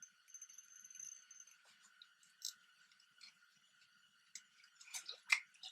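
Faint scattered clicks and small handling noises, with a cluster of sharper clicks near the end, the loudest among them, over a faint steady high-pitched hum.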